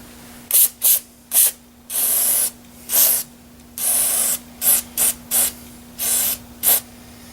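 Spray cleaner squirted onto a Ruger 10/22 rifle bolt in about eleven separate hissing bursts, most short and a few held longer.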